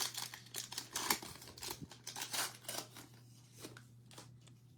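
A trading-card pack wrapper being opened and handled, with the cards inside shuffled: a run of short crinkling rustles that thins out after about three seconds.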